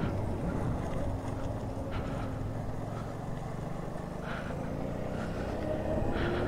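Simple One electric scooter being ridden through a bend: a steady low rumble of riding with a faint motor tone that sags slightly and then rises near the end as the scooter picks up speed again.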